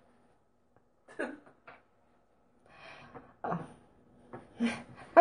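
Faint, broken-up talk and breaths in a small room, with short pauses of near silence between the fragments.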